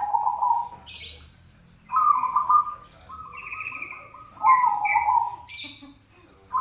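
Zebra dove (perkutut) singing: several rippling, trilled coo phrases in a row, each under a second long with short pauses between. Brief high chirps come about a second in and again near the end.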